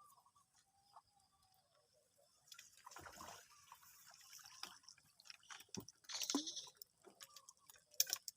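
Water dripping and splashing in short bursts as a fish trap is lifted out of the water and handled.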